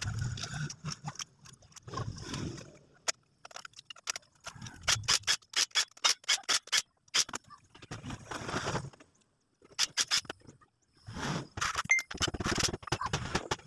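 Cordless impact driver run in short bursts, rattling as it drives in the bolts of a motorcycle engine's side cover, with clinks of bolts and tools between the bursts.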